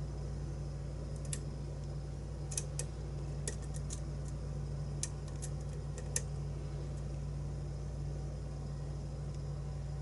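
Small, sharp metallic clicks and ticks of a lock pick and tension wrench working the pins inside a challenge lock, a dozen or so scattered irregularly through the first six seconds, some in quick pairs and triplets, over a steady low hum.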